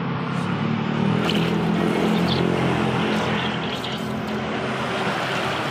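Water sloshing and splashing in a tyre-testing dip tub as a hand swishes through it and works a rubber inner tube under the surface, over a steady low hum.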